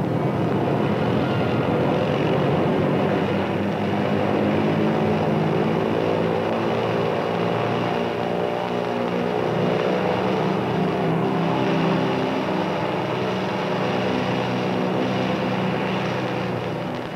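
Grumman F7F Tigercat's two radial piston engines running, a loud steady roar.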